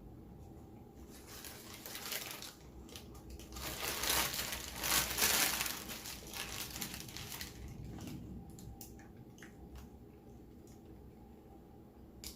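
Paper food packaging crinkling and rustling as it is handled, loudest in the middle few seconds, with scattered small clicks.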